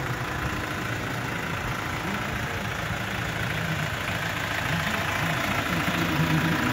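Kia Bongo III 1.2-ton cargo truck's engine idling steadily.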